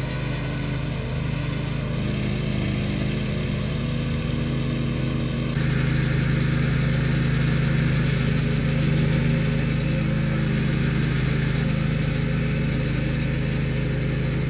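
An engine runs steadily with a low hum, and gets louder about five and a half seconds in.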